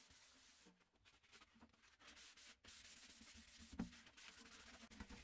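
Faint scratchy rubbing of a sanding block and abrasive pad worked back and forth over the painted metal lid of a paraffin can, flatting the paint, with brief pauses and one light knock about four seconds in.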